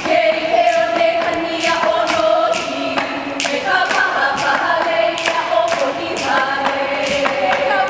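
Hawaiian hula chant: voices in long held notes that step in pitch, with sharp strikes of an ipu gourd drum keeping the beat.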